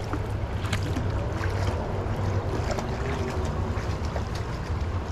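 Steady rush of a fast, high-running river current around the wading angler, with a low rumble of wind on the microphone. A few small ticks and splashes are scattered through it.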